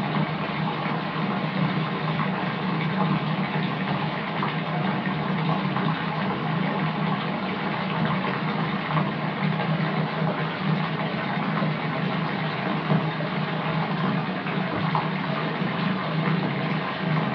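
Water running steadily from a tap into a filling bathtub, a constant rush with a steady low drone underneath.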